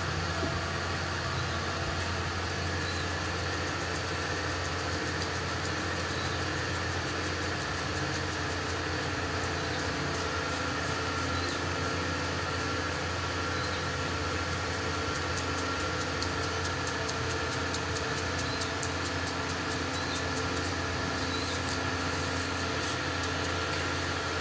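A steady low mechanical hum with a few faint clicks over it.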